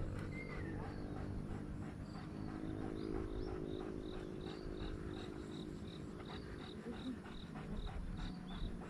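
Forest ambience: short, high chirps repeating a few times a second over a low, steady hum.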